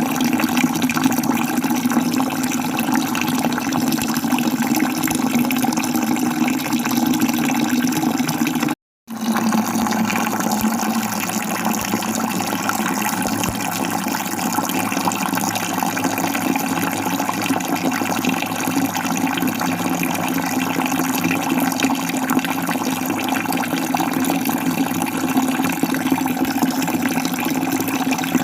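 Water falling steadily, a continuous rushing sound. About nine seconds in it cuts out to dead silence for a fraction of a second, then resumes, like an edit splice in the recording.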